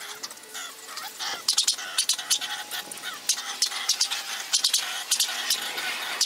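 Outdoor sound played back at five times normal speed, turned into rapid, high-pitched clicking and squeaky chatter that comes in quick clusters.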